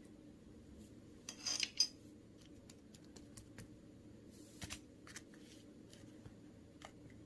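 Faint handling noises: scattered small clicks and a brief rustling clatter about a second and a half in, over a steady low hum.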